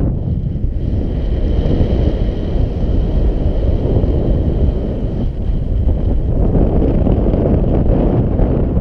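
Airflow buffeting a GoPro Hero 4 Black's microphone in paraglider flight: a steady, loud, low rushing rumble with no let-up.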